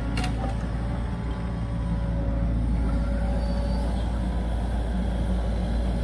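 Wheeled Volvo excavator's diesel engine running steadily with a deep rumble while its hydraulic log grapple lifts and swings a log, with a short knock just after the start.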